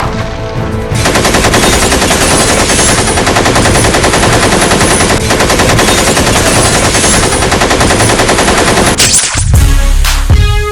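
Sustained rapid automatic gunfire, a continuous burst of shots lasting about eight seconds over background music. Near the end the gunfire stops and music with heavy bass beats takes over.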